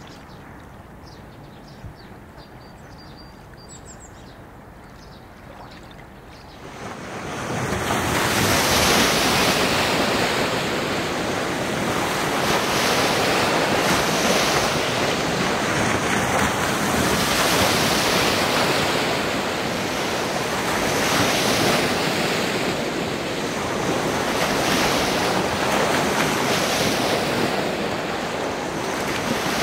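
Wake waves from a passing superyacht washing onto the river bank: after a quiet start they arrive suddenly about seven seconds in, then surge and ebb every three to four seconds.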